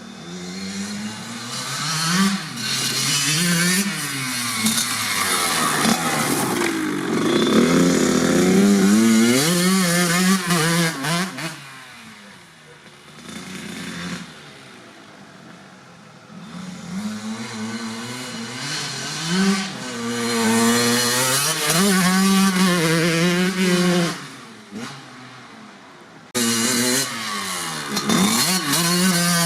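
1997 Kawasaki KX80's single-cylinder two-stroke engine with a DEP silencer, revving up and down while being ridden. It climbs in pitch and drops back repeatedly and eases off to a quieter note twice. It comes back in loud abruptly near the end.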